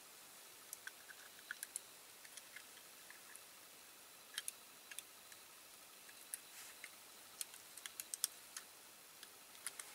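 Faint, irregular light clicks and taps of small metal and plastic parts being handled and pushed together: the front steering and wheel pins of a Corgi Toys diecast model car being fitted.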